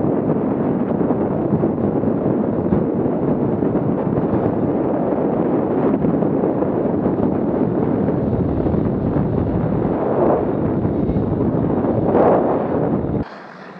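Wind rushing and buffeting over an action camera's microphone while skiing downhill at about 55–70 km/h: a loud, steady roar that cuts off suddenly near the end.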